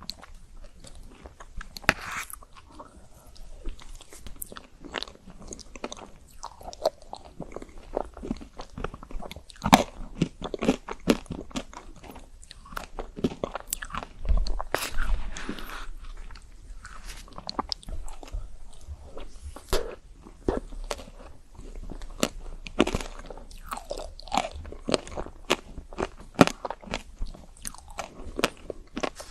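Close-miked eating of chocolate-coated ice cream: irregular crunching and crackling as the hard chocolate shell is bitten through, with chewing and wet mouth sounds in between.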